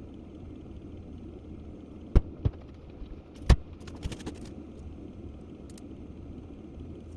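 Sticks of kindling knocking and clattering as they are laid in a fire pit: a few sharp knocks a couple of seconds in, the loudest near the middle, then smaller clatters, over a steady low hum.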